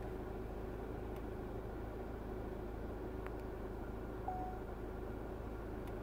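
Steady low background rumble with a faint hum, broken by one faint click about three seconds in and a short faint note a little after four seconds in.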